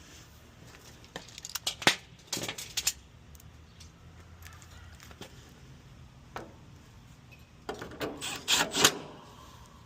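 Sharp metal clicks and rattles from screws and hand tools being handled while an air-conditioner fan motor's mounting screws go in. They come in two short clusters, about two seconds in and again near the end.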